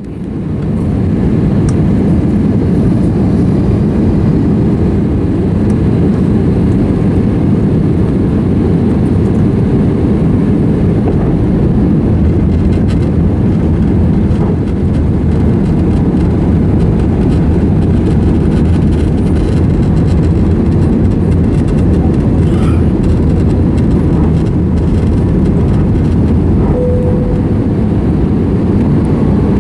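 Steady rumble of an Airbus A320neo's engines and airflow heard inside the passenger cabin in flight, mostly low-pitched. A short faint tone sounds near the end.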